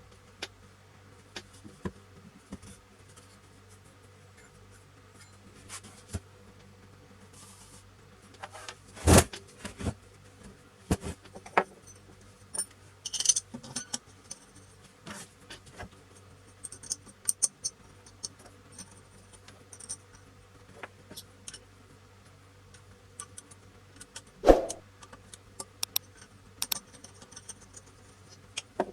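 Scattered metallic clicks and clinks of tools and metal parts being handled at a workbench, with a few louder knocks, about nine seconds in, near the end and at the very end, over a faint steady low hum.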